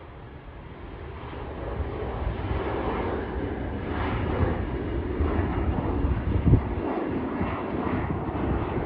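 Mitsubishi CRJ-700ER airliner's twin GE CF34-8C turbofans climbing out after takeoff: a steady jet rumble that swells over the first couple of seconds, then holds. A brief low thump about six and a half seconds in.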